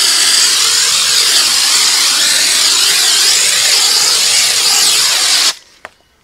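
High-pressure washer spray hissing steadily against the car's bodywork, its tone sweeping as the jet moves across the surface. The spray cuts off suddenly about five and a half seconds in as the trigger is released, followed by a few faint clicks.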